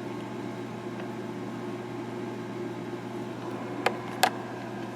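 Steady electrical hum and hiss, with two sharp clicks close together about four seconds in.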